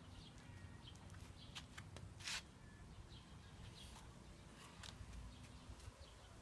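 Near silence: quiet outdoor background with a low steady rumble and a few faint short high chirps and clicks, one click louder about two seconds in.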